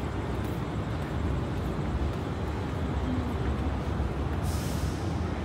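Steady low rumble of street traffic, with a short hiss of air about four and a half seconds in.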